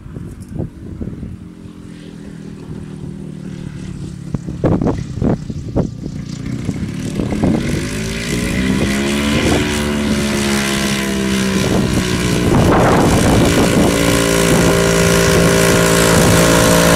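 Belite ultralight airplane's engine and propeller running as the plane rolls along the ground and taxis toward the listener, growing steadily louder; the engine note shifts about nine seconds in. Gusts of wind hit the microphone in the first half.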